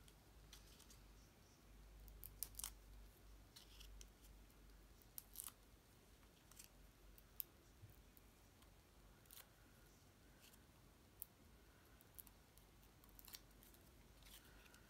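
Faint paper handling: scattered small clicks and crackles as adhesive foam squares are peeled and pressed onto a cardstock piece, with near silence between them.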